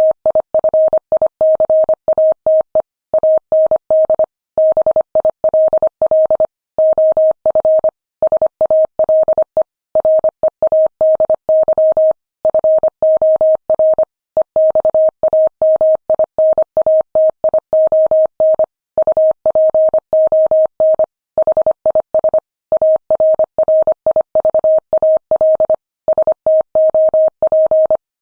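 Morse code sent at 25 words per minute: a single steady tone keyed on and off in rapid dots and dashes, with short pauses between words.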